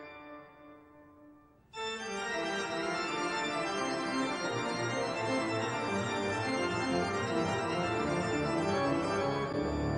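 Keyboard music with sustained, organ-like tones. A held chord fades away, then a new, busier passage starts abruptly a little under two seconds in and carries on at full level.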